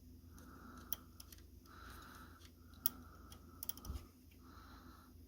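A few faint, sharp metallic clicks and taps, irregularly spaced with a small cluster near the end, from parts and a tool being handled on a Remington Portable No. 2 typewriter's backspace mechanism.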